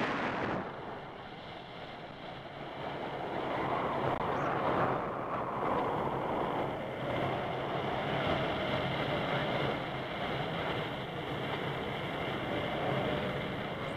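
Wind rushing over the camera microphone of a paraglider in flight: a continuous rushing noise that swells and eases.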